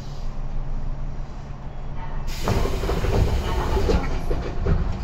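Tobu 9000 series electric train running in a subway tunnel: a steady low rumble, then a little over two seconds in the noise gets suddenly much louder and clattering.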